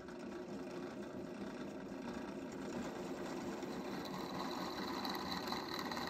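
Drill press running with a larger twist drill bit cutting down through the head of a padlock rivet lubricated with cutting oil: a steady mechanical whir, with a thin high whine joining about four seconds in.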